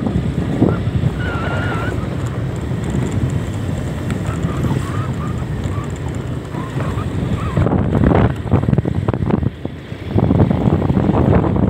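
Wind buffeting the microphone of a moving motorcycle, with the motorcycle's engine running underneath. The wind gusts louder about eight seconds in and again near the end.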